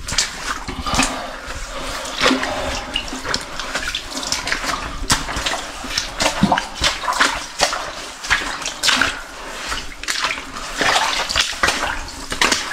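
Footsteps wading through shallow water, splashing and sloshing irregularly.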